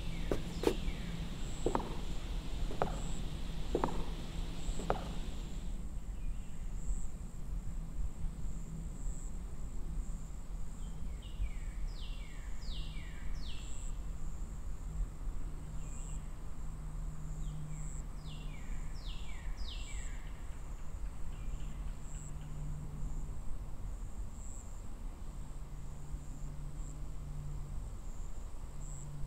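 Outdoor ambience. First come about five soft knocks, roughly one a second, like footsteps, then a bird calls two short runs of quick falling notes, all over a faint steady high whine and a low hum.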